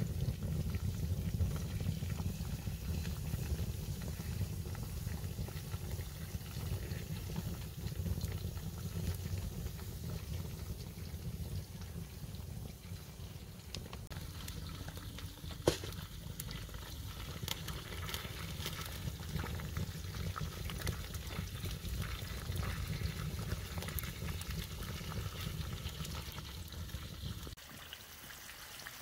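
A pot of water with duck legs boiling over an open wood fire, bubbling with a low rumble. Now and then the fire gives a sharp crackle, the loudest about halfway through. The rumble drops away near the end.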